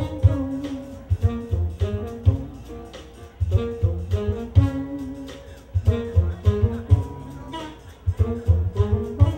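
Live jazz-funk band playing an instrumental groove without vocals: a steady drum-and-bass beat under keyboard, vibraphone and saxophone lines.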